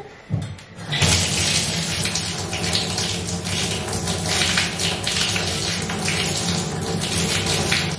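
Bath tap turned on about a second in and running steadily, water pouring into a bathtub.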